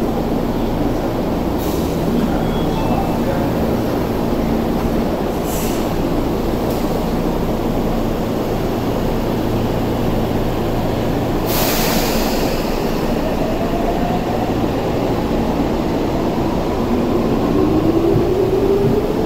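Electric subway train at an underground platform, running steadily before departure; a sharp hiss of air about eleven seconds in, then a rising motor whine as it pulls away.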